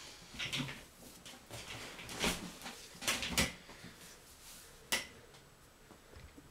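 Household handling noises from a person moving about a small room and sitting down: a handful of separate knocks and clatters with some rustling, and a last sharp knock about five seconds in.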